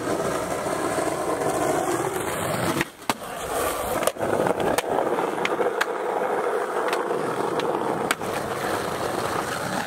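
Skateboard wheels rolling on rough pavement, with a handful of sharp clacks as the board pops onto the ledge and lands.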